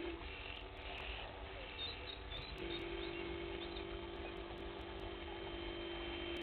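Faint outdoor ambience: a steady low hum that drops out at the start and comes back about two and a half seconds in, with a few faint bird chirps.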